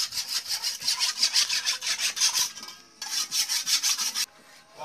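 Rapid rasping strokes of a blade working back and forth, about six a second, in two runs broken by a short pause.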